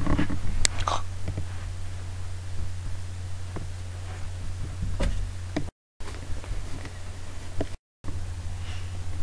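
Steady low hum with a few scattered clicks and knocks; the sound cuts out completely twice, briefly, in the second half.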